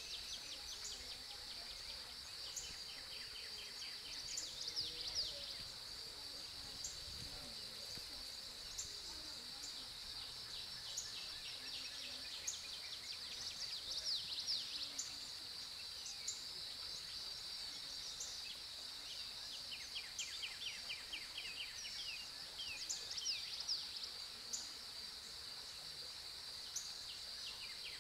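Steady high-pitched insect chorus in the trees, with birds chirping and giving rapid trills several times over it.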